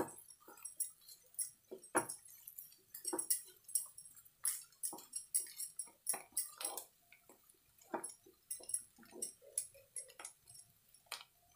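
Wooden spatula scraping and knocking against a non-stick frying pan as mashed potato is stirred and turned over, in irregular strokes a few times a second.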